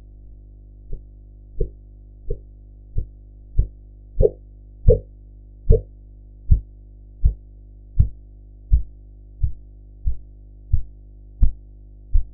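Korotkoff sounds heard through a stethoscope over a deflating blood pressure cuff: regular low thumps, about one and a half per second, that begin about a second in and grow louder toward the middle, over a steady low hum. The first thump marks the systolic pressure.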